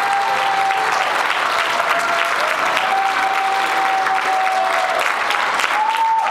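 Audience applauding steadily, many hands clapping together, with a faint high held tone running underneath.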